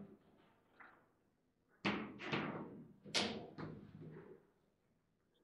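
Table-football (foosball) play: the ball being struck by the rod figures and knocking off the table, heard as a couple of faint taps and then five sharp knocks from about two seconds in, the middle one loudest.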